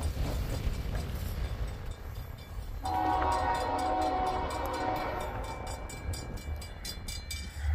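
Approaching freight train's locomotive air horn sounding a long multi-note chord that begins about three seconds in, over a steady low rumble.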